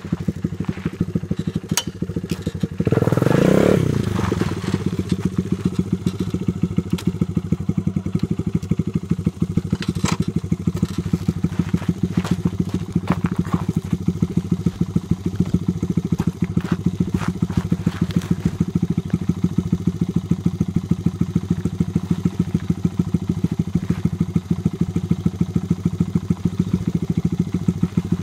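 Small single-cylinder dirt bike engine running, revved once about three seconds in with a quick rise and fall in pitch, then running steadily with a regular pulse.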